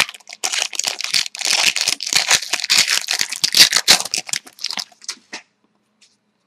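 Hockey card pack wrapper being torn open and crinkled by hand: a dense run of crackles and rustles that stops about five seconds in.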